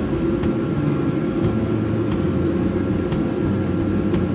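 Steady low rumble with a faint steady hum, and a short high chirp about every second and a half.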